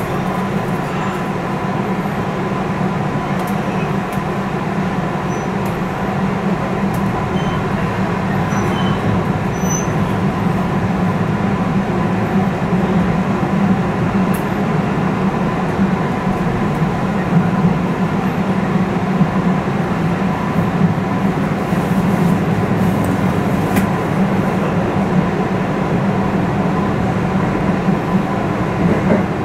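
Interior running noise of a JR West 221 series electric train gathering speed after departure, a steady low rumble and hum that grows slightly louder, with a thin steady tone above it.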